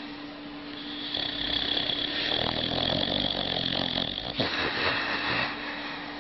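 Sleeping dog snoring.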